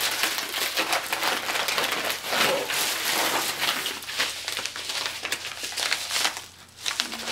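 Packaging crinkling and rustling in irregular bursts as it is handled, easing off near the end.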